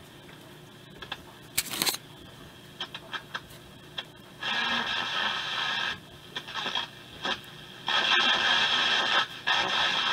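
Hallicrafters S-120 shortwave receiver being tuned across the band: faint static with scattered crackles and clicks, then loud surges of hiss about halfway through and again near the end as the dial moves.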